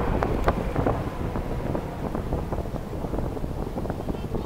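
Fireworks between shell bursts: the low rumble of a burst dying away, with scattered small crackles and pops and wind noise on the microphone. A new shell cracks right at the end.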